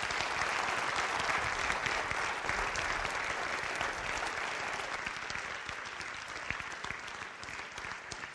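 Audience applauding: a dense clatter of many hands clapping, strongest in the first few seconds and slowly dying down toward the end.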